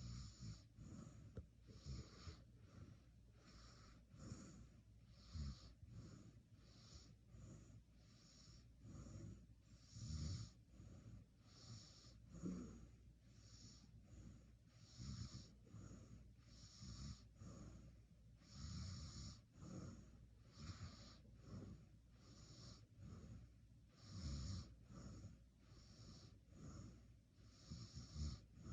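A person snoring faintly in sleep, with short breathy snorts about every two seconds.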